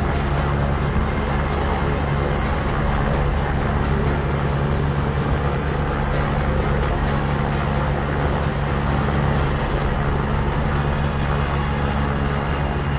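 A steady engine drone with a deep, even hum under a wide rushing noise, unchanging throughout.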